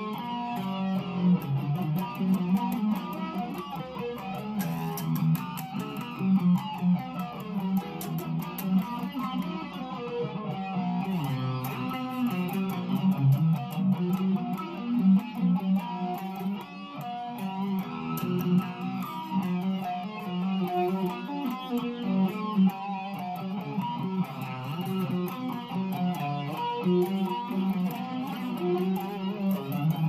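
Guitar music: plucked guitar notes that change quickly, over a steady low line.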